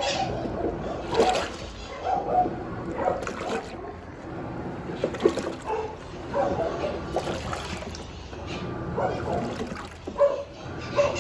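Water sloshing and splashing in uneven surges inside a Sayko washing machine tub loaded with heavy bedding on its duvet programme.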